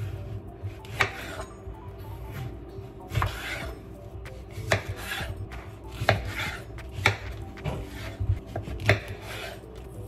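Kitchen knife cutting through pears on a wooden cutting board: a short rasp of the blade through the fruit with each stroke, and several sharp knocks as the blade meets the board.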